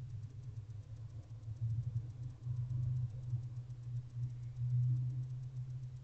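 Low, steady rumble that swells twice, about halfway and again near the end, with a faint fast ticking over it.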